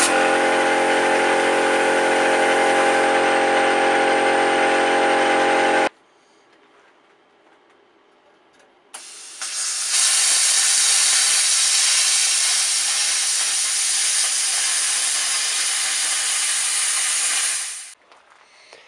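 Plasma cutter cutting sheet steel: a loud, steady hiss with a hum of steady tones that cuts off sharply about six seconds in. After a few quiet seconds an angle grinder starts and grinds the cut-out steel letters with a steady hiss, stopping just before the end.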